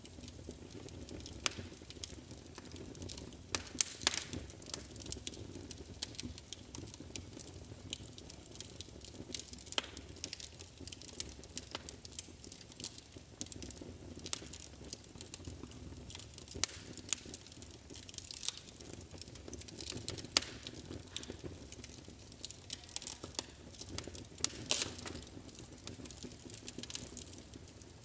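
Wood fire burning in a fireplace: irregular crackles and sharp pops over a soft, low rush of flame.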